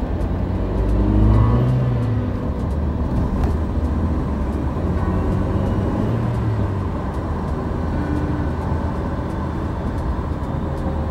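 Steady low rumble of a car driving, heard from inside the cabin. The sound swells briefly about a second in as an oncoming car passes.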